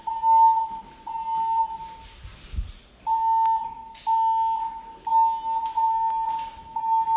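Fire alarm voice-evacuation system sounding its alert tone through the building's speakers. A steady tone pulses on and off about once a second, with a longer break after the first three pulses, in the evacuation pattern played between the spoken evacuation messages.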